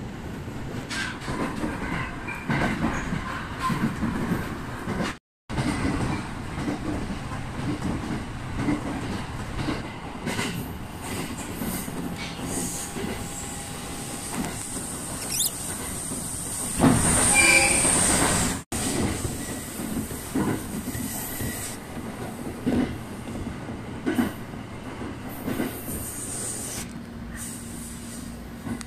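Local train running along the track, heard from on board: a steady rumble with clicks of wheels over rail joints and a thin high squeal of wheel flanges on the tight curves. The squeal gets louder about two-thirds through, then the sound cuts off abruptly. There is also a brief cut-out about five seconds in.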